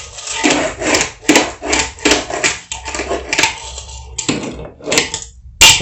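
A fingerboard rolling and clacking on a wooden fingerboard ramp. Its small wheels rumble over the wood between repeated sharp clicks of the board hitting the ramp, with the loudest clack near the end.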